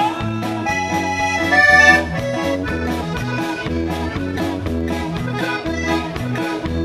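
A live band's instrumental break: a piano accordion plays the melody over strummed acoustic guitar, a bass line and a drum kit keeping a steady beat.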